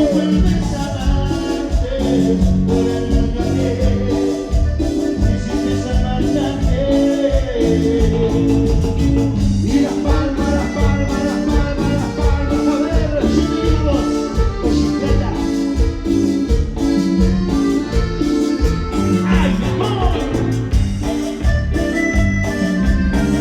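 A live band playing Latin American dance music: an organ-toned keyboard lead over a steady bass and drum beat.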